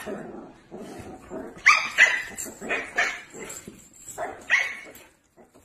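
Husky giving a run of short barks and yips, several calls in quick succession, loudest a couple of seconds in and again near the end.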